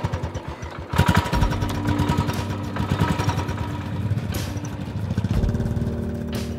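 Royal Enfield Bullet 500 single-cylinder motorcycle engines running close by and pulling away, their exhaust beating in quick even pulses, loudest about a second in.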